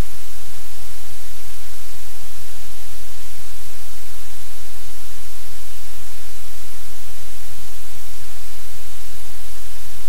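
Loud, steady static hiss with a low electrical hum underneath, unchanging throughout: noise on the livecam's audio feed.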